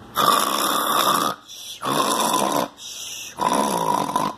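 A man snoring loudly: three rasping snores about a second long each, in quick succession.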